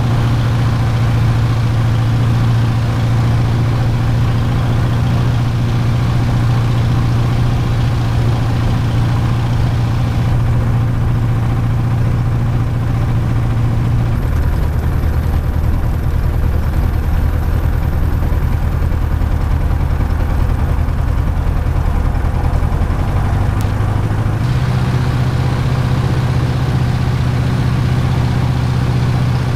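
Jodel DR1050's piston engine running on the ground, heard from the cockpit; its note steps down to a lower speed about halfway through and back up a few seconds before the end. It is running rough, sounding like a tractor, a fault the pilot says is not the spark plugs this time.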